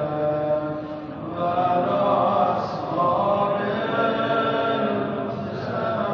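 A man chanting a Muharram mourning elegy in long, held melodic phrases, pausing briefly about a second in and again near the end.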